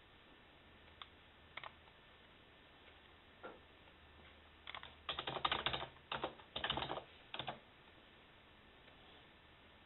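Typing on a computer keyboard: a few single keystrokes, then a quick run of keys about five seconds in that lasts about three seconds before stopping.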